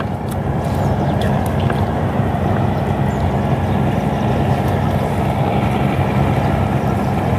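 Small boat engine running steadily at low speed, a low even hum.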